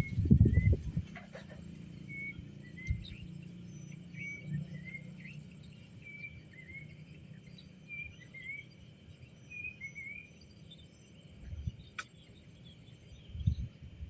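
A bird calling repeatedly with short high chirps, about one a second, over a steady low hum. There are heavier low thumps right at the start and again near the end.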